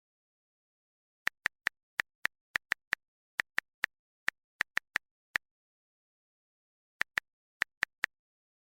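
Phone keyboard clicks tapped in an uneven, typing-like rhythm: about sixteen quick clicks, a pause of over a second, then five more, with complete silence between them.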